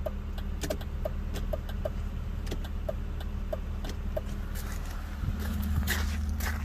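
BMW E39 528i's straight-six engine idling with a steady low hum, slightly stronger near the end. Light clicks and a row of short high blips, about one or two a second, sit over it.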